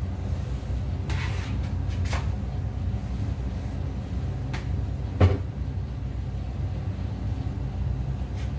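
Kitchen clatter: a few light knocks of cookware and utensils, with one sharp knock about five seconds in, over a steady low hum.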